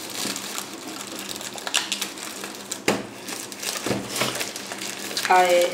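Packaging and small fingerboard parts being handled: crinkling and rustling with scattered light clicks and knocks, and a short vocal sound near the end.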